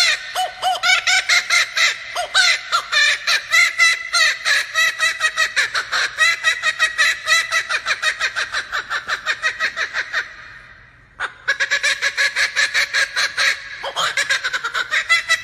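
Male laughing kookaburra giving its loud laughing call: a long run of rapid, cackling notes that breaks off briefly about ten seconds in, then starts up again.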